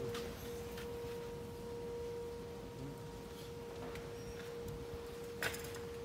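A steady, pure whine held at one unchanging pitch, with a single sharp click about five and a half seconds in.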